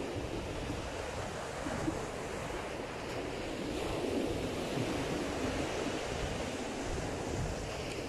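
Sea surf on a sandy beach: waves breaking and washing up the shore in a steady rush that swells a little midway, with wind rumbling on the microphone.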